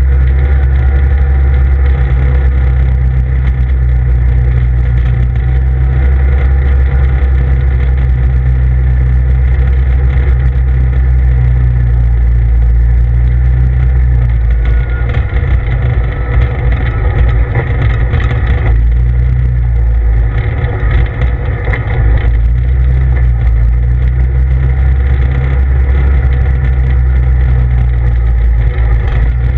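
CF Moto ZFORCE 800EX side-by-side's V-twin engine running steadily under way, heard from inside the cab with a heavy low rumble. About halfway through the engine note wavers and briefly drops for several seconds before settling again.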